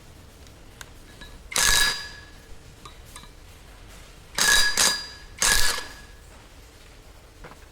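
Four loud metal-on-metal strikes on heavy steel parts, each followed by a brief bell-like ring: the first alone, then three close together a few seconds later.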